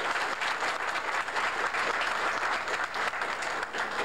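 Audience applauding steadily, a dense even clapping from a roomful of people.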